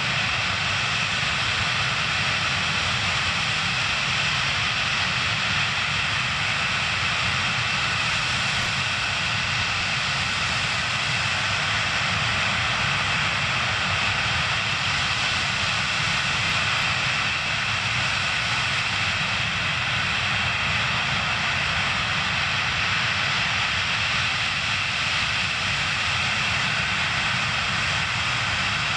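Antonov An-124-100's four Progress D-18T turbofan engines running steadily: an even jet rush with a high whine, neither rising nor falling.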